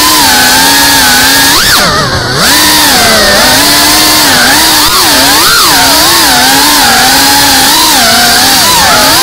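GEPRC FPV quadcopter's brushless motors and propellers whining loudly, heard from on board, the pitch rising and falling constantly with the throttle. Near two seconds in it spikes up, then briefly drops low and quieter before climbing again.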